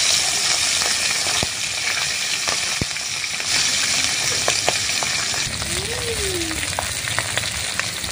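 Tangra fish frying in hot oil in a steel kadai: a steady, loud sizzling hiss with scattered pops and clicks, easing a little about five and a half seconds in.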